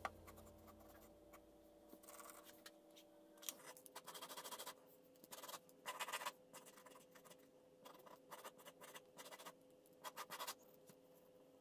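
Faint, scratchy drawing strokes on paper, coming in several short bursts of hatching with pauses between them.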